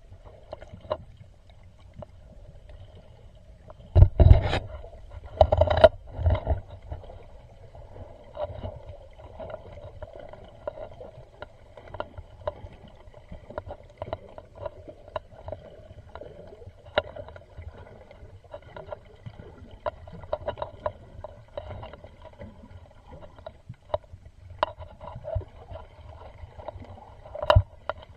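Underwater sound picked up through a camera's waterproof housing: a steady low rumble and faint hum with scattered clicks, and a few loud knocks about four and six seconds in and again near the end.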